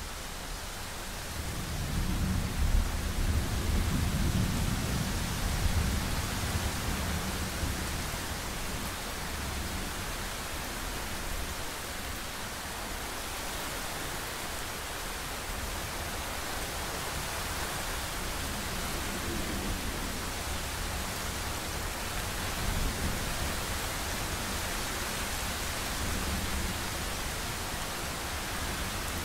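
Thunderstorm ambience: steady hiss of heavy rain with a long, low rumble of thunder starting a couple of seconds in, and a second, fainter rumble about three quarters of the way through.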